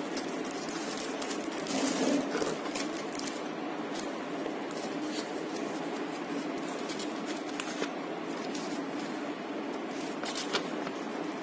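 Plastic wrap crinkling as a speaker is lifted from its cardboard box, loudest about two seconds in, then a folded paper instruction leaflet rustling as it is opened out, with a flurry of crackles near the end. A steady low hum runs underneath throughout.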